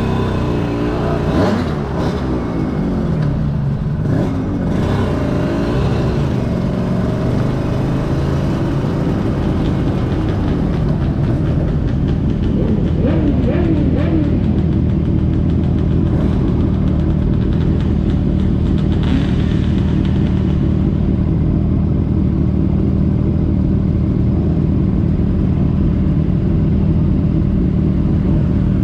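Aprilia RS250 two-stroke V-twin racing motorcycle engine running, its note rising and falling with the revs in the first few seconds and again about halfway through, then holding a steady note.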